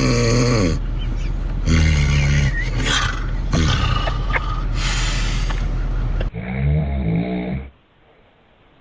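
Loud snoring: several long, pitched snores one after another. About six seconds in comes a shorter, duller snore.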